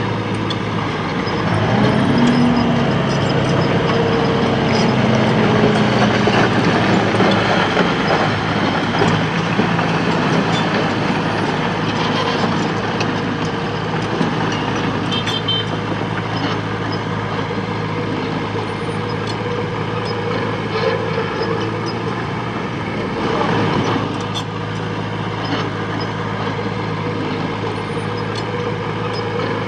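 Heavy diesel engine of the earthmoving machinery running steadily under load, growing louder about a second in, with scattered knocks and clanks.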